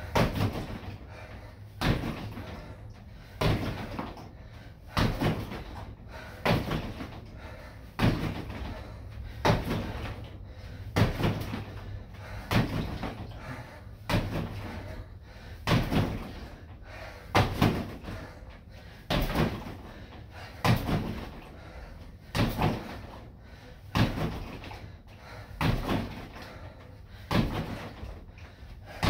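Kicks landing on a freestanding body-opponent training dummy: a dull thud about every one and a half seconds, now and then two in quick succession.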